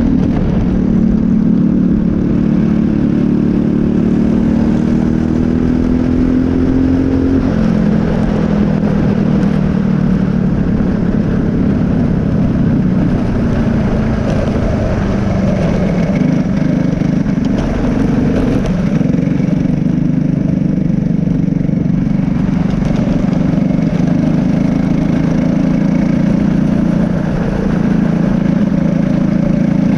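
Briggs & Stratton LO206 single-cylinder four-stroke kart engine at racing speed, heard on board. The engine note climbs steadily for about seven seconds, drops sharply as the throttle comes off, then rises and falls with the throttle through the corners.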